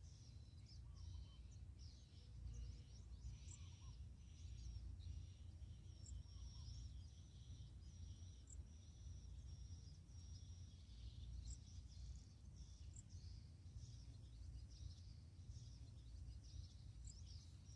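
Faint outdoor ambience: small birds chirping and trilling high up, over a low steady rumble of wind.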